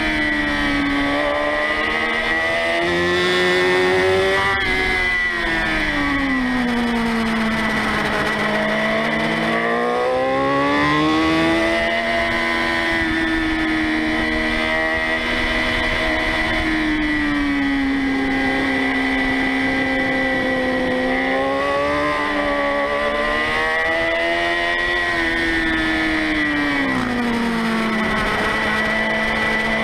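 Motorcycle engine heard from a camera mounted on the bike, its revs rising and falling as the rider accelerates out of and rolls off into a string of corners, with a steady high whine above the engine note.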